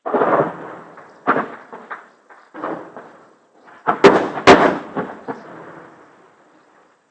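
Shelling and gunfire: a series of blasts about a second apart, each trailing off in a rolling echo, with the two sharpest cracks about four seconds in. The blasts die away near the end.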